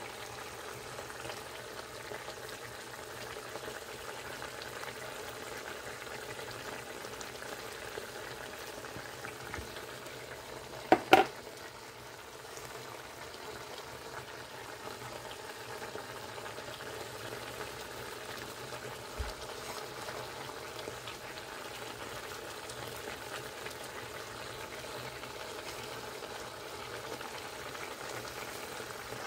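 Sardines in tomato and pepper sauce simmering in a nonstick frying pan: a steady bubbling sizzle. About eleven seconds in, two sharp knocks close together stand out above it.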